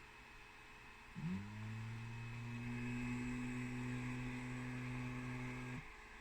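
Elegoo Mars resin printer's Z-axis stepper motor running: a steady low hum that rises quickly in pitch about a second in, then holds and cuts off suddenly near the end. This is the strange noise the owner hears low in the Z travel, where the printer apparently no longer finds its Z-axis zero point.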